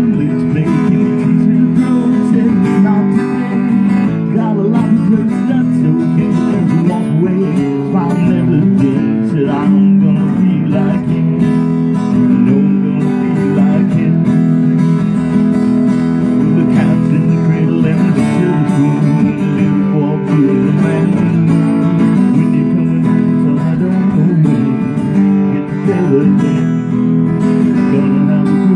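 Live acoustic guitar strumming together with a smaller strummed stringed instrument, playing a steady instrumental passage of a song.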